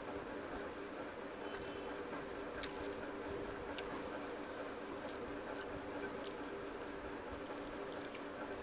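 Fingers mixing rice and curry on a steel plate, with scattered small soft clicks and squishes, over a steady background hum.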